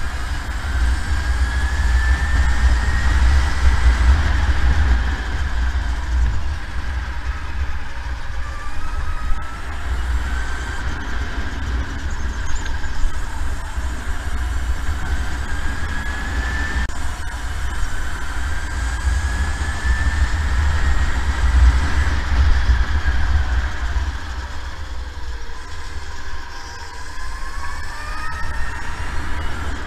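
SodiKart electric go-kart's motor whining as it drives, the pitch rising steadily several times as it accelerates down the straights and dropping back for the corners, over a heavy low rumble.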